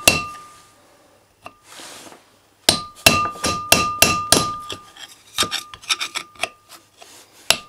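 A hammer striking a screwdriver set against the edge of the old outer bearing race in a front wheel hub, driving the race out. Sharp metallic blows in quick runs, each with a brief ring, with a pause of about two seconds after the first blow.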